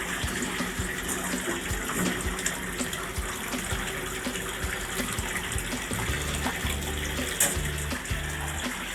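Water running steadily from a tap into a bathtub. A low hum starts and stops in short blocks from about six seconds in.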